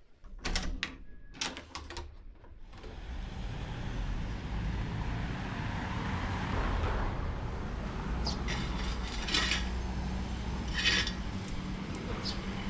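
City street traffic: motor vehicles running past in a steady rumble, preceded by a few sharp clicks in the first two seconds.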